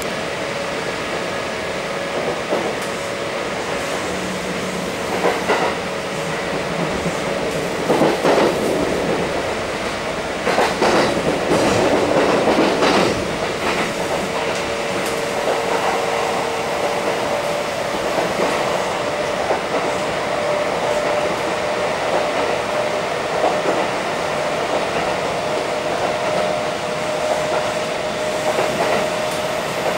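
Running sound of a Kintetsu 1230 series electric train (Hitachi GTO-VVVF drive), heard from inside the passenger car: steady rolling noise with a steady whine. Heavier wheel clatter and knocks come between about 8 and 13 seconds in.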